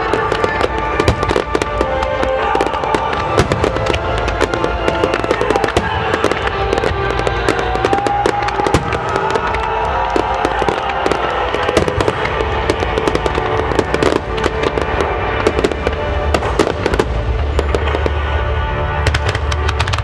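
Fireworks bursting and crackling in rapid, continuous succession, over loud music.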